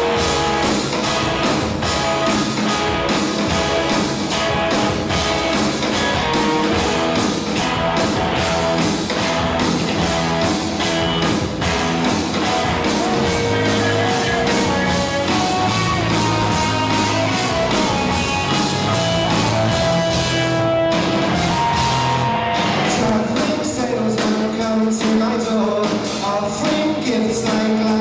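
Live rock band playing a song with electric guitars, drums and singing, loud and steady throughout, with a brief thinner passage about three quarters of the way in.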